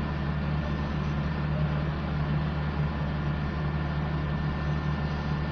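Heavy diesel engine of road-construction machinery running steadily at an even speed.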